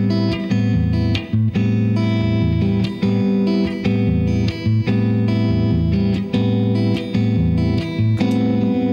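Electric guitar, a Fender Stratocaster, playing a rhythmic A minor groove: repeated chords changing about every half second to second, with short breaks between strums.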